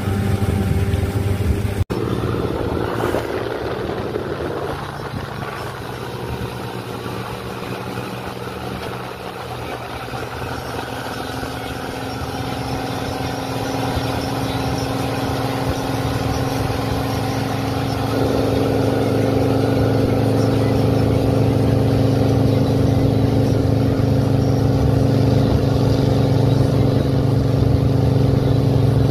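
Boat engine running with a steady droning hum, growing louder through the second half as the double-decker passenger riverboat draws nearer. There is a brief dropout about two seconds in.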